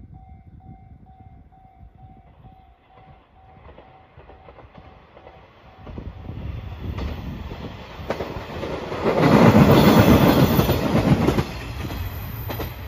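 KiRo 185 series diesel railcar of the Anpanman Torokko train approaching and passing close by. It grows louder from about halfway through and is loudest for a couple of seconds near the end, with clickety-clack from the wheels over the rail joints.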